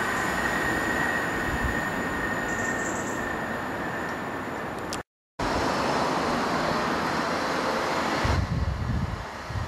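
Southern Class 377 Electrostar electric multiple unit running past on the rails: a steady rush of wheel and motor noise with a high steady whine that fades. The sound cuts out abruptly about five seconds in, then the train noise resumes, with low irregular rumbling thumps near the end.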